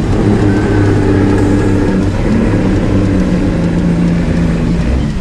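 Kenworth bed truck's diesel engine running hard under load as the truck shoves a wrecked car across the dirt, its pitch shifting a few times.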